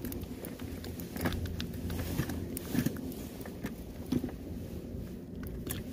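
Handling noise as a caught mackerel is picked up and worked off the hooks: scattered light taps and clicks, with a low steady rumble underneath.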